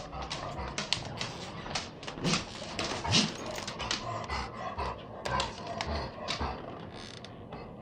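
Golden retriever breathing rapidly and noisily in quick, rhythmic breaths, with two short rising tones about two and three seconds in. It is a warm-weather breathing problem that the owner suspects is either allergies or laryngeal paralysis.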